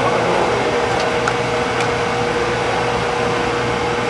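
A machine running steadily: an even whir with a constant humming tone.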